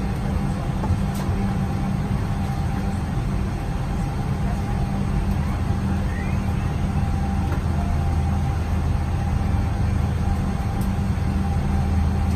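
Steady low hum inside a Boeing 777-300 airliner cabin as it is pushed back from the gate, with a faint steady tone above it; the deepest part of the hum grows a little stronger about halfway through.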